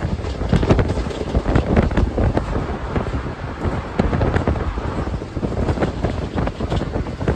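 Running noise of the 22929 Dahanu Road–Vadodara Superfast Express heard at an open coach window: wind buffeting the microphone over the rumble and irregular clatter of the wheels on the track.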